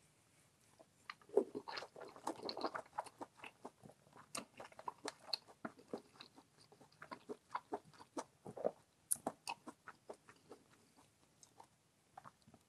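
Close-miked food and utensil sounds: a run of irregular small clicks and crunchy, wet crackles of a spoon working through rice and sauce, thickest in the first few seconds and thinning out near the end.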